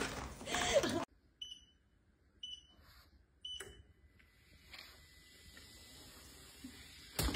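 Under-desk walking-pad treadmill beeping three times, short high beeps about a second apart, followed by a faint steady hum.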